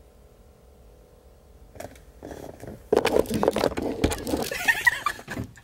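A car door being opened and someone climbing into the car with a bag: rustling, scraping and clunks, with a low thump about four seconds in, over a faint steady hum.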